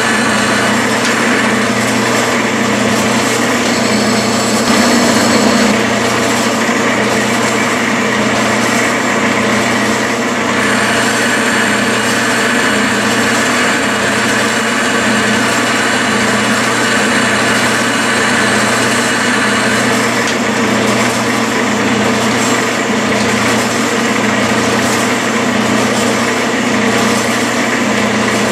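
Metal lathe running steadily under power while a single-point tool cuts internal threads in the bore of a chuck backing plate. A higher-pitched note grows louder for about ten seconds midway.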